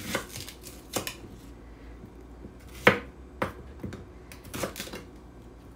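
Chef's knife slitting shallots and knocking on a wooden cutting board: a handful of sharp knocks at uneven intervals, the loudest about three seconds in.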